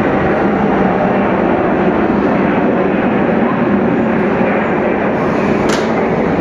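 Steady hum and hiss of a Thunderbird limited express electric train standing at the platform, its onboard equipment running. A single short, sharp click comes near the end.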